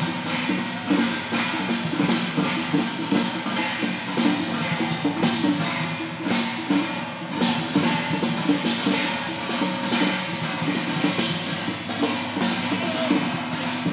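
A Chinese festival procession percussion ensemble playing without pause: drums beaten with clashing cymbals and ringing gongs in dense, rapid strikes.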